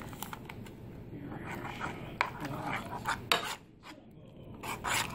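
A metal spoon stirring mushrooms in a cream sauce in a frying pan, scraping against the pan, with a few sharp clinks of spoon on pan in the second half.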